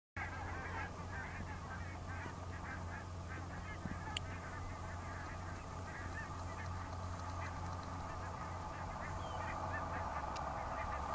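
A flock of geese calling, with many short honks overlapping throughout, over a steady low hum. A single sharp click sounds about four seconds in.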